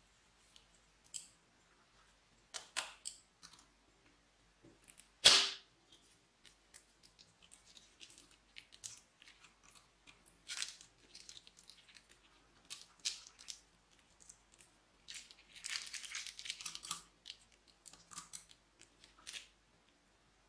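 Plastic piping bag crinkling and crackling as glittery slime is squeezed out of it, with scattered small clicks, one sharp snap about five seconds in, and a thicker run of crackling later on.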